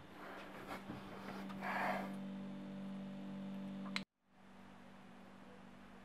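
Small fridge door being opened by hand: a few light knocks and a brief rustle about two seconds in, over a steady low hum. The sound cuts off abruptly about four seconds in, leaving faint room tone.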